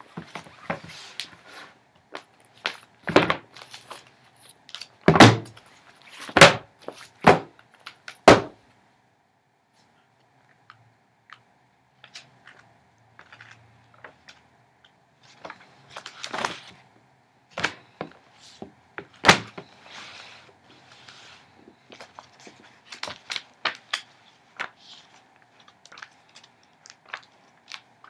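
Glossy magazines handled on a wooden surface: about six loud slaps and thumps as they are dropped and slapped down in the first third, then pages riffled and turned with crisp paper rustles and sharp page flicks.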